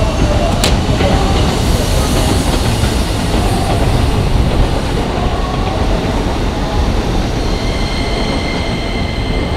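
Keikyu 2000 series electric train pulling out of the station, its wheels rumbling and clattering over the rails as the last cars pass and draw away. There is a sharp click a little under a second in.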